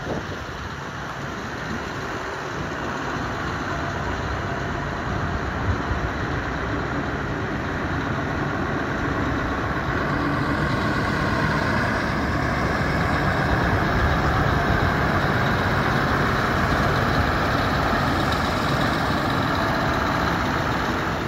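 Scania R560 tractor unit's 16-litre V8 diesel engine running steadily at low speed, growing louder in the second half.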